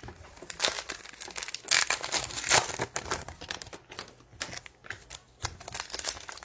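Foil trading-card pack wrappers crinkling and tearing as packs are opened by hand, in irregular rustling strokes.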